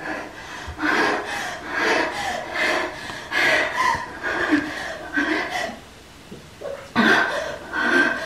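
A woman's wordless emotional vocalizing at a studio microphone during a dubbing take: breathy cries and gasps in repeated bursts, dropping off briefly about six seconds in, then coming back loud.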